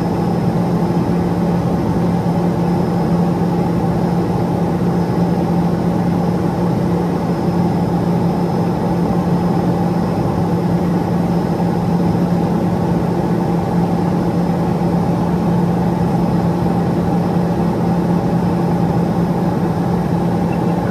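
Cessna P210 Silver Eagle's Rolls-Royce (Allison) 250 turboprop and propeller running steadily in flight, heard inside the cockpit: an even drone with a strong low hum and a faint high turbine whine.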